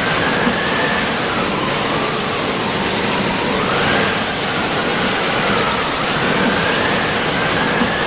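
Heavy rain and rushing floodwater, a loud, steady noise. Above it a faint tone rises and falls slowly, about every three seconds.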